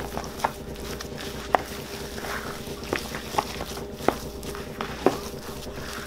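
Wooden spoon stirring and mashing soft potato filling in a mixing bowl, knocking against the bowl about six times at irregular intervals.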